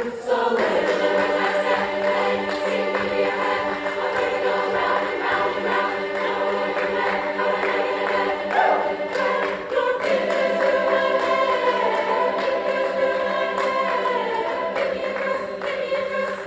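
Women's chorus singing in parts, holding long chords, with a fresh chord entering about ten seconds in.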